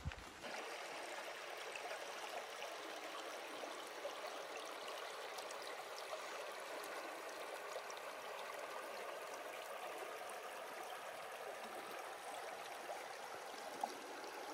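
Shallow, stony mountain river rippling steadily over rocks and gravel, heard up close, with one brief click near the end.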